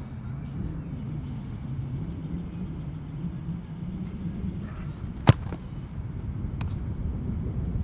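A single sharp thump of a boot striking a football for a free kick, about five seconds in, with a fainter knock just over a second later. Under it runs a steady low hum.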